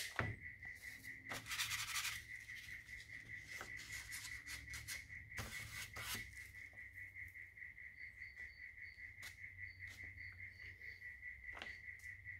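Faint rubbing and handling noises of small objects being moved on the bench, over a steady high-pitched pulsing trill. A row of short, higher chirps comes in about eight seconds in.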